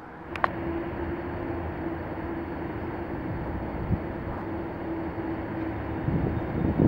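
ET22 electric freight locomotive approaching with a train of loaded coal hoppers: a steady hum with one held tone over a low rumble, growing louder and rougher near the end as the train nears. A single sharp click about half a second in.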